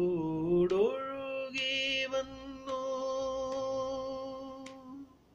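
A man singing a Malayalam film song with no accompaniment heard. He finishes a line and holds one long, steady note that fades out about five seconds in.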